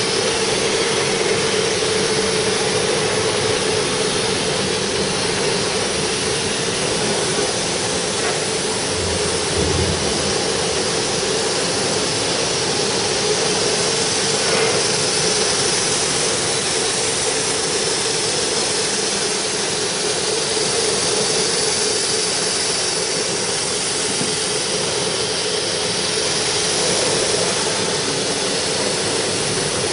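Automatic filter bag sewing machine running, a steady, even machine noise with a constant hum underneath.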